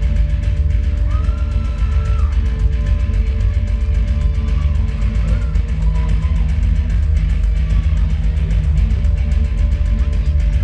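Loud heavy rock music with guitar and driving drums, a wrestler's entrance theme playing over the arena sound system.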